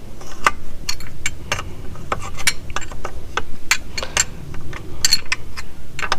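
Socket ratchet clicking in uneven strokes, a few clicks a second, as the bolts are run in to draw the outboard's lower unit up into place.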